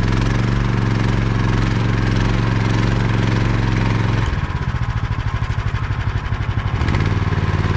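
Snowdog Standard B13 tracked snow machine's engine running under throttle while the buried machine is worked to drive itself out of deep snow. About four seconds in, the steady note drops into a slower throb, then picks back up near the end.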